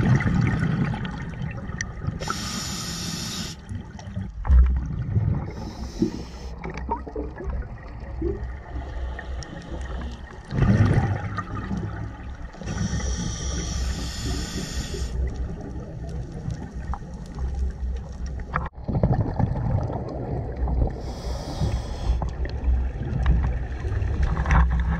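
Scuba regulator breathing underwater: slow breaths through the regulator with several bursts of exhaled bubbles rushing past, heard through the camera housing.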